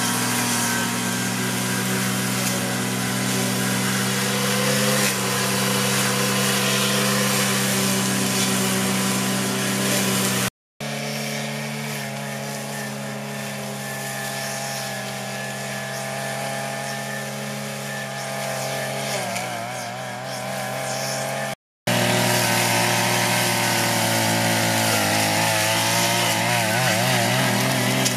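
A small engine running steadily at an even pitch, broken twice by brief dropouts to silence.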